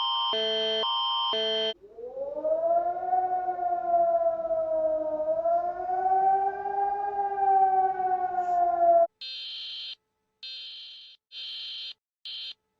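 Emergency alert sounds in sequence: a repeating multi-tone Canadian emergency alert signal that cuts off about two seconds in, then a civil defense siren that rises and wavers for about seven seconds before stopping abruptly, then a high alert tone sounding in short pulses of uneven length.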